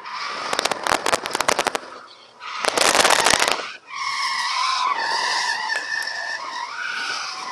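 Ford AU Falcon drifting, heard from inside the cabin. Two rapid bursts of crackling pops come in the first half, one about half a second in and one around three seconds in. From about four seconds on the tyres squeal steadily, their pitch stepping up and down as the slide goes on.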